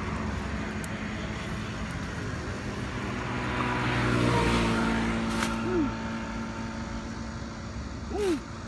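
A motor vehicle engine runs with a steady hum. It swells louder around the middle of the stretch, then eases off. Two short chirps come in the second half.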